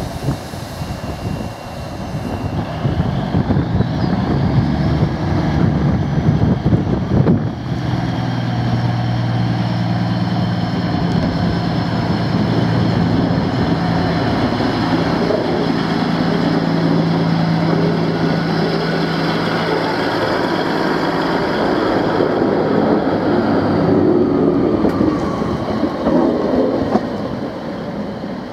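British Rail Class 153 single-car diesel multiple unit's underfloor Cummins diesel engine running and pulling away, with a rising whine early on, then a steady drone. The sound fades near the end as the train moves off.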